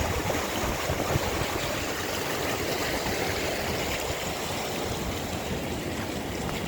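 Rain-swollen floodwater rushing steadily along a drainage canal, an even, continuous wash of running water.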